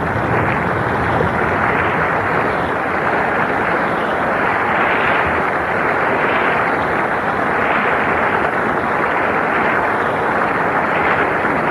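Congress hall audience applauding at the close of a speech, heard as a dense, steady clatter through a narrow-band shortwave radio broadcast, swelling and easing gently every second or so.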